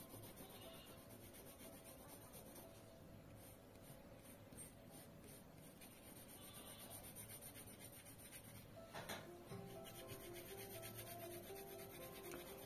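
Faint scratching of a graphite pencil on drawing paper: short, repeated shading strokes.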